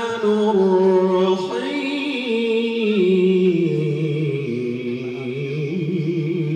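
A man's solo Quran recitation (tilawah) in long, ornamented melodic phrases. A new phrase starts about a second and a half in, and the melody steps downward in pitch with wavering turns.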